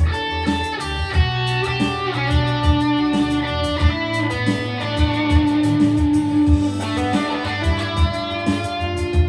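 Music led by electric guitar, with sustained notes over a bass line and a steady beat.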